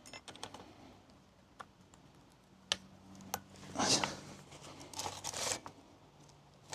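Scattered light clicks and scrapes of hands working on a chainsaw, setting the chain tension and pulling the chain round the bar.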